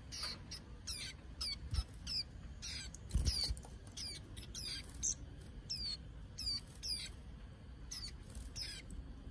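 Caged young white-eyes calling over and over: short, high notes that slide downward, about three a second. A soft thump sounds about three seconds in.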